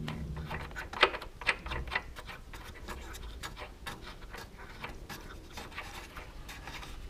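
Irregular small clicks and scrapes as the fixing screw of a Peugeot 307 rear light cluster is turned out by hand, with the sharpest clicks about a second in and again about half a second later.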